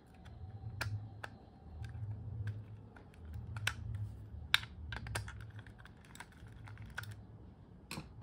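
Irregular light clicks and taps of a plastic laser mouse shell being handled and screwed shut with a small screwdriver.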